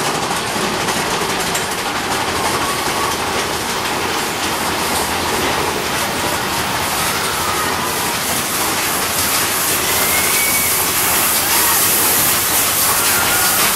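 Big Thunder Mountain Railroad mine-train roller coaster running along its track, heard from inside the car as a steady rattle and clatter with faint squeals now and then. Over the last few seconds a hiss of falling water grows as the train passes a waterfall.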